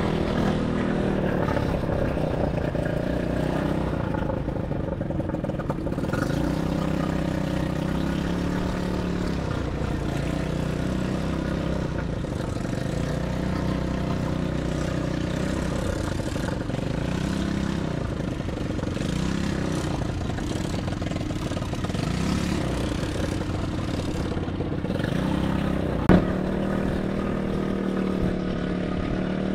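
ATV engine running while being ridden, its pitch rising and falling again and again with the throttle. A single sharp click near the end.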